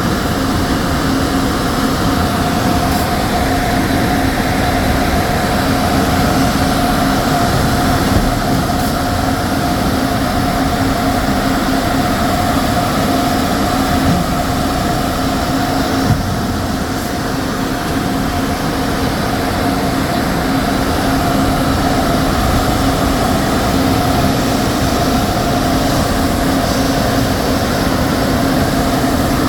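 Sawmill machinery running: a loud, steady industrial din with a constant two-note hum, and a few faint knocks about eight and fourteen seconds in.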